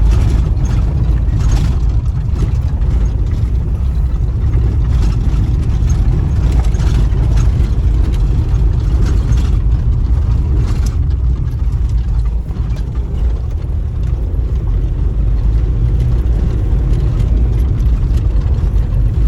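Steady low rumble of a motor vehicle engine, with scattered clicks and rattles.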